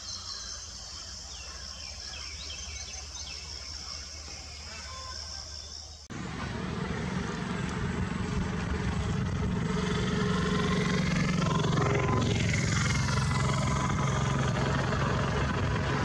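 Outdoor background with a few faint bird chirps, then about six seconds in a sudden jump to louder road-vehicle noise: a steady engine hum with a vehicle passing close by, loudest about two-thirds of the way through.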